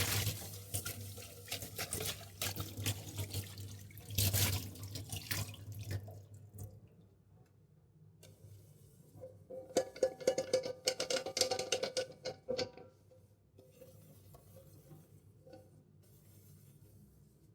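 Water from a kitchen tap running and splashing in a sink while vessels are washed. It comes in two spells: the first lasts about six seconds, and a second of about three seconds follows mid-way, with a steady tone through it. The end is quieter.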